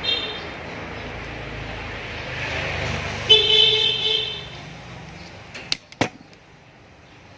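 A vehicle horn tooting twice, a brief blip at the start and a longer toot about three seconds in, over traffic rumble that fades away. Two sharp clicks follow near the end.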